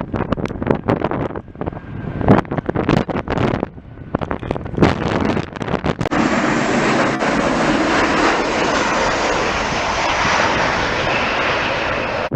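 Wind buffeting the microphone in choppy gusts, settling about six seconds in into a steady, loud rush.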